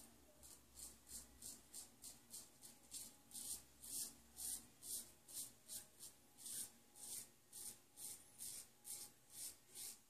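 Faint, quick scraping strokes of a Seagull safety razor with a Wilkinson blade cutting stubble through shaving lather, about three short strokes a second.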